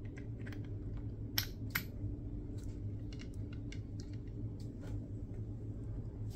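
Light clicks and taps of machined aluminium model-engine parts as a gearbox casing is fitted against a crankcase in the hands, with two sharper clicks about a second and a half in. A steady low hum sits underneath.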